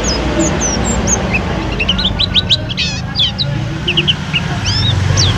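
White-eye (pleci) singing: a quick run of high, thin chirps and short falling whistles, with a fast trill about halfway through. A steady low rumble sits underneath.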